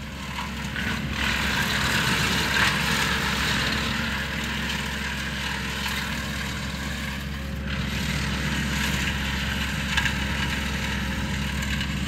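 A compact tractor running a Woodland Mills TF68 PRO PTO-driven wood chipper while a pine branch is fed in and chipped. A steady low engine hum sits under a loud rushing whir from the chipper, which swells over the first second or so.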